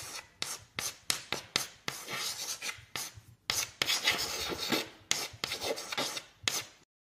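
A pen nib scratching across paper in a run of short, quick writing strokes, stopping suddenly near the end.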